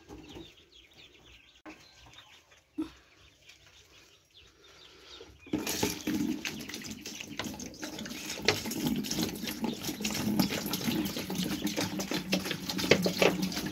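Faint peeping of chicks, then, about five seconds in, water starts pouring from a plastic bottle into a plastic chick waterer, filling it steadily.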